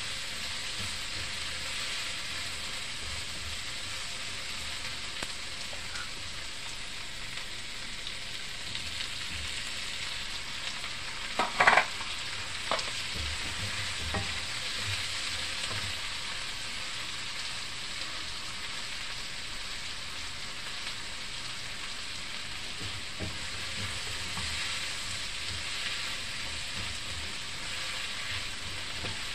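Sliced onions and tomatoes sizzling in a hot nonstick frying pan while a spatula stirs them, a steady frying hiss. There is one brief, louder clatter a little before halfway.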